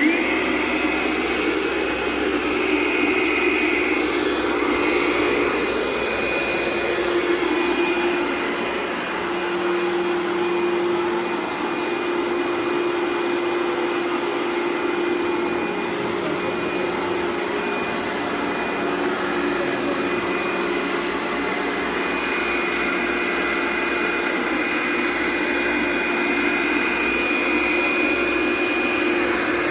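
A machine's motor running steadily: a constant whirring noise with a steady hum and a faint high whine.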